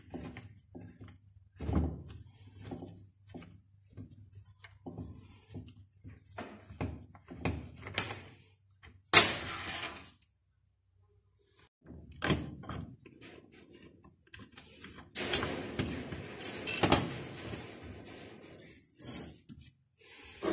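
Hand tools and small metal engine parts handled on a workbench: scattered knocks and clinks, a sharp metallic click about eight seconds in, and short stretches of scraping.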